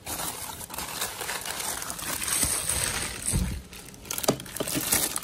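Bubble wrap and plastic packaging crinkling and rustling as it is handled and unwrapped, with a dull thump about three and a half seconds in.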